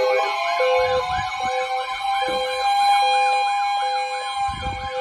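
Weather alert radios alarming together for a severe thunderstorm warning. A steady high tone runs under a short beep repeating a little more than once a second and a fast warble. Two low thuds come about a second in and near the end.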